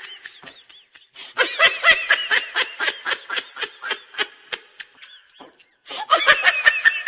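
Laughter in a rapid run of short bursts. It breaks off about five seconds in and starts again about a second later.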